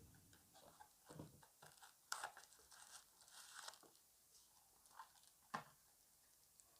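Faint rustling and crinkling of packaging being handled, with scattered small clicks and two sharper crackles, about two seconds and five and a half seconds in.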